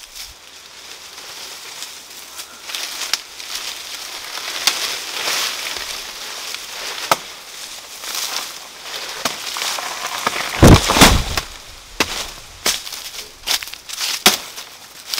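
Dry banana leaves and leaf sheaths crackling and rustling as they are pulled and torn from a banana plant, with sharp snaps throughout and a loud crunching crash about eleven seconds in.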